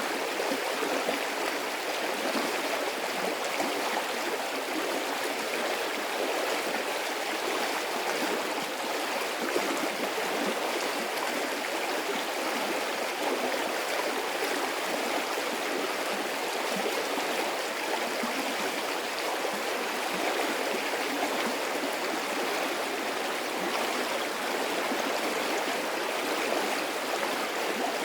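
Medium-sized stream of water flowing and burbling steadily, with no pauses or single events.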